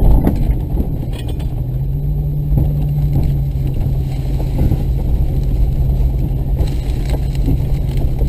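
Off-road vehicle's engine running at a steady speed under heavy low rumble, with a few light knocks and bumps over rough ground.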